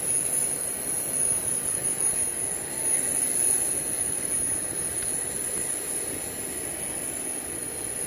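Steady rumbling machine noise with a constant high-pitched whine on top, easing off slightly toward the end.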